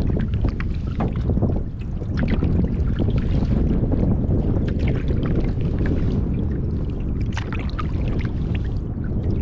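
Canoe paddle strokes: water splashing and dripping off the paddle blade. A steady low rumble of wind on the microphone runs underneath.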